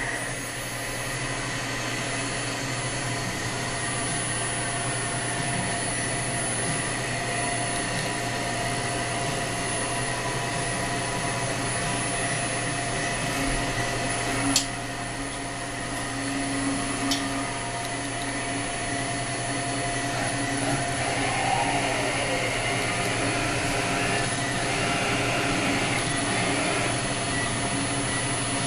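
Anca Fastgrind 5DX CNC tool and cutter grinder running: a steady whirring hum with several held tones. A sharp click comes about halfway through, a softer one a few seconds later, and a short falling whine a little after that.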